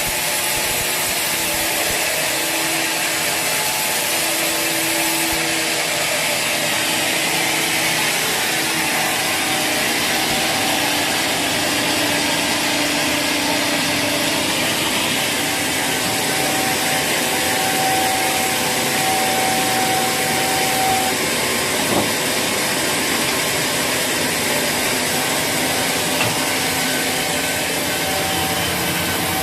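Sawmill saw cutting through teak wood: a steady rushing sawing noise with faint humming tones from the machine that come and go.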